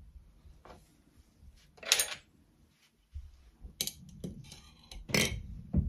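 A handful of separate light clinks and taps from a tall glass of ice as garnish wheels are set on its rim and a metal straw is put into the drink, the sharpest clink about two seconds in.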